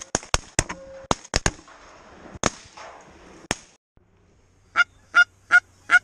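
Goose honks: a stretch of sharp, quick clucks at first, then about six evenly spaced honks near the end.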